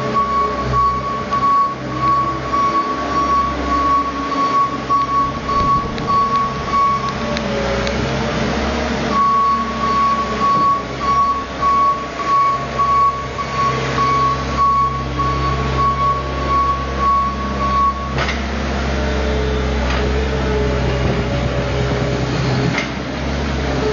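New Holland L160 skid steer's diesel engine running steadily while its backup alarm beeps repeatedly as the machine reverses. The beeping pauses briefly about seven seconds in, resumes, and stops about eighteen seconds in, leaving the engine running alone.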